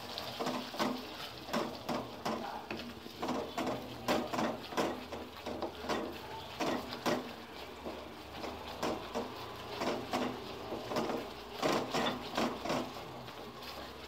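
Wooden spatula stirring thick sauce in a metal kadai, knocking and scraping against the pan about twice a second, over a steady faint sizzle.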